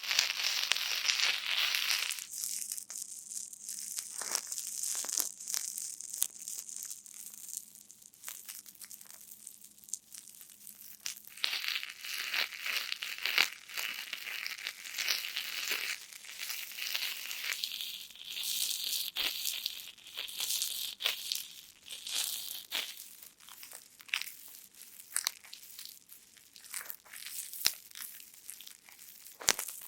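Star-shaped foam cushion sponges for gift wrapping squeezed by hand again and again, each squeeze a squishy hiss full of dense crackling and popping.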